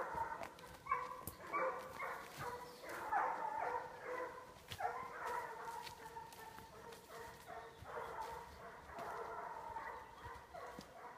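Young hunting dogs baying over and over while working a wild boar: long drawn-out calls, one after another, with sharp snaps of twigs and undergrowth underfoot.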